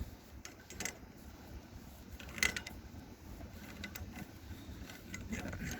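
A few scattered light clicks and knocks from hand work on pipe fittings, the sharpest about two and a half seconds in, over a faint low steady background.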